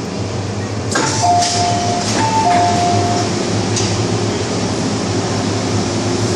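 Door chime on an MTR M-Train: a clear two-note high-then-low chime sounded twice, just after a clunk about a second in, over the train's steady low hum.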